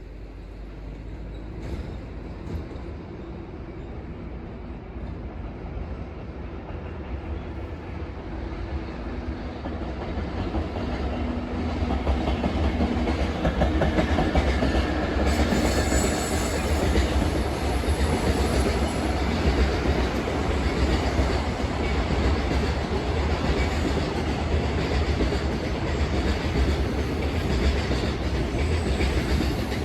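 JR Freight EF64 electric locomotive hauling freight train 2075 past, growing louder over about the first twelve seconds, then a steady loud rumble of wheels on rails as the wagons roll by.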